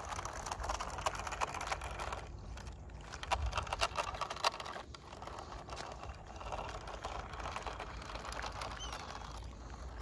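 Radio-controlled toy monster truck driving over loose gravel: the tyres crunch and crackle over the stones while its small motor and gears whir. The crackle thins out briefly a couple of times.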